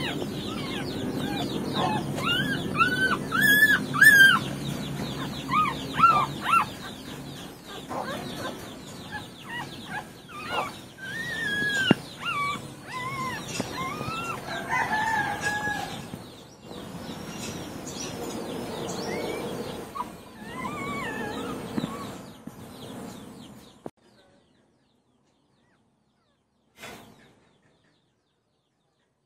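Chickens clucking and calling, with smaller birds chirping higher up. About 24 seconds in, all of it cuts off suddenly, leaving near silence apart from one short faint sound near the end.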